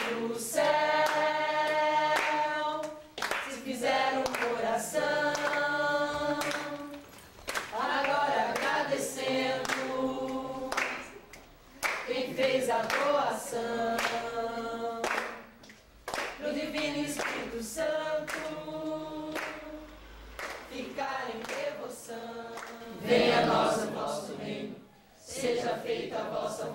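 A Folia de Reis group singing a capella in several voices in long held phrases with short breaks between them, with hand clapping throughout.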